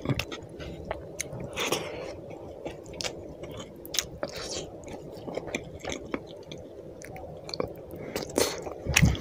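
Close-miked wet chewing and lip smacking of a person eating rice and fish curry by hand, with frequent short sharp mouth clicks.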